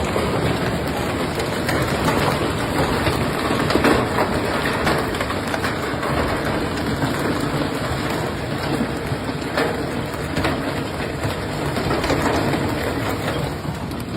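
Heavy storm downpour pounding steadily on surfaces, with a few sharper hits standing out now and then.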